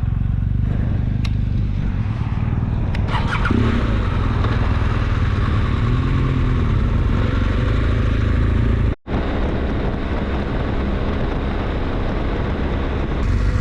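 Motorcycle engine running steadily, a continuous low rumble with wind noise. The sound cuts out for a split second about nine seconds in.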